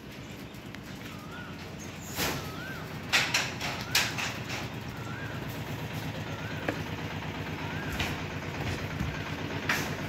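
A steady low hum under several sharp knocks and clatters, the loudest about three and four seconds in, with a short warbling chirp repeating about once a second.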